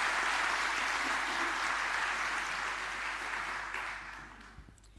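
Audience applause, dying away about four seconds in.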